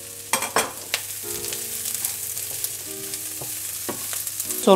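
Onion, garlic and chopped bell peppers sizzling in a nonstick frying pan over medium heat while a wooden spatula stirs them, with a few sharp scrapes of the spatula in the first second.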